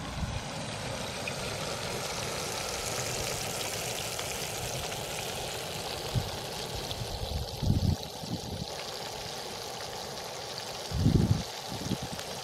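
Creek water running with a steady rushing hiss. A few low thumps of wind on the microphone, the strongest about eight and eleven seconds in.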